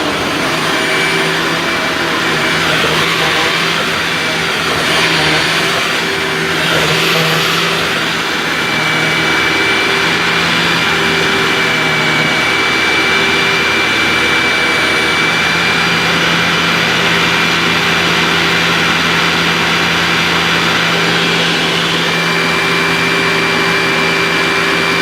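Dirt Devil Vision self-propelled upright vacuum cleaner running on a rug: a steady high whine over rushing air, with the air noise swelling and easing a little in the first several seconds.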